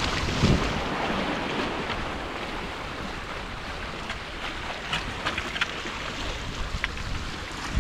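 Sea water washing against breakwater rocks, a steady rushing noise with wind on the microphone. A few sharp ticks come in the second half.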